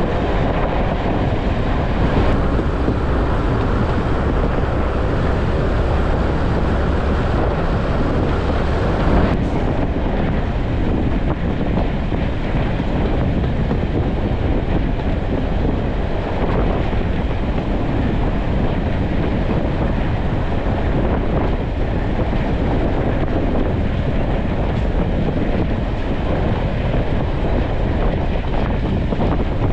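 Passenger train running along the line behind a diesel locomotive, heard from an open coach window: a steady rumble of wheels on rails with wind buffeting the microphone. The wind hiss eases a little about nine seconds in.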